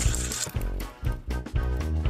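Upbeat background music with a steady beat of about two strokes a second.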